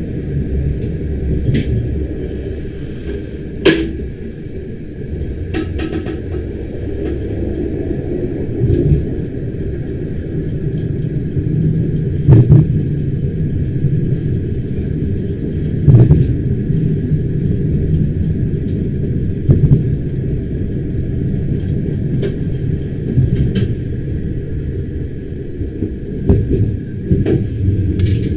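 Bernina Express train running, heard from inside a passenger carriage: a steady low rumble with a few sharp knocks now and then, about a second in and then every few seconds.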